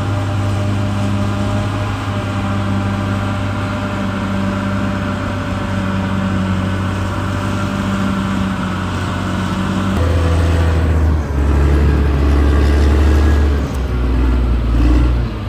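Caterpillar D6R XL bulldozer's diesel engine running steadily. About ten seconds in, the sound shifts abruptly to a lower, louder drone that rises and falls toward the end.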